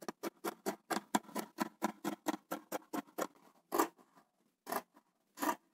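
Scissors cutting through polar fleece fabric: a quick even run of snips, about five a second, then three slower separate snips near the end.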